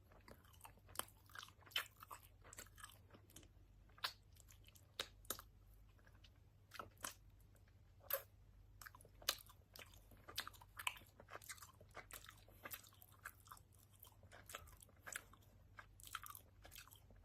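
A person chewing with the mouth open, making wet lip-smacks and small crunches in an irregular run of sharp clicks, while eating a sweet.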